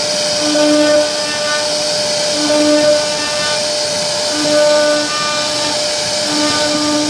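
CNC router spindle running and cutting into a wooden door panel: a steady high whine and hiss, with a lower hum and its overtones that comes in for about half a second roughly every two seconds as the machine repeats its carving moves.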